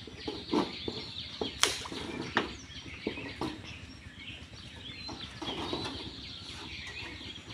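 Pond water splashing and sloshing as a man wades and pushes a bamboo pole into the water, with several sharp, irregular splashes or knocks in the first few seconds. Birds chirp faintly behind.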